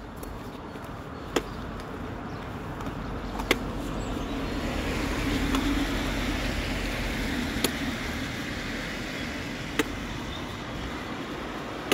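A car passing slowly along a wet street: engine and tyre hiss swell up about four seconds in and fade toward the end. A few sharp ticks sound a couple of seconds apart.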